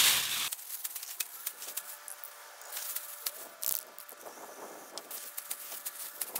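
Thin plastic bag crinkling and rustling in the hands as it is scrunched into a ball, a scatter of small crackles and taps.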